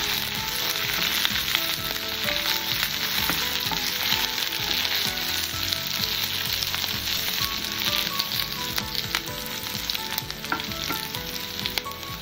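Sliced onions and fresh curry leaves sizzling in hot oil in a non-stick wok, stirred with a wooden spoon, with small clicks and crackles through the steady sizzle.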